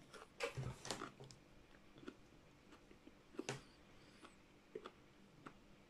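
Faint wet clicks and crunches of a person chewing a fresh Trinidad Moruga Scorpion pepper pod: a cluster in the first second or so, a louder one about three and a half seconds in, then a few scattered faint ones.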